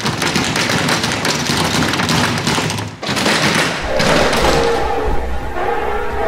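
Metal push bars on glass doors being shoved and rattled over and over, a dense run of thuds and taps as the doors stay shut. About four seconds in, a low droning music bed comes in.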